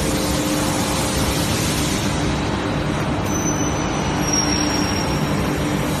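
Steady running noise of an aluminium billet furnace and hot shear line: an even rushing noise with a low hum, and a faint thin high whistle for a couple of seconds midway.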